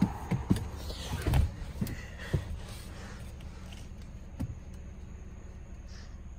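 A handful of soft knocks and rustles in the first couple of seconds, with one more about four and a half seconds in, as a person climbs into a car's driver's seat. A low steady hum runs underneath.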